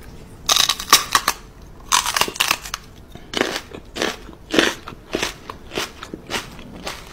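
A woman's exaggerated chomping and crunching mouth noises as she pretends to bite a dog's paw. Two longer bursts come in the first three seconds, then shorter bites at a steady pace, a little under two a second.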